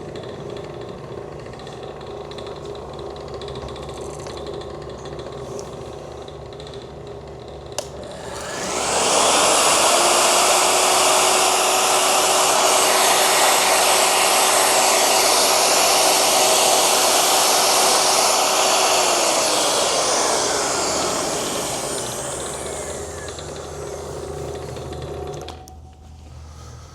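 Husqvarna DM400 110-volt core drill motor started with a click about eight seconds in, running loud with a steady whine for about ten seconds, then winding down with a falling pitch. A vacuum pump hums steadily underneath and stops near the end.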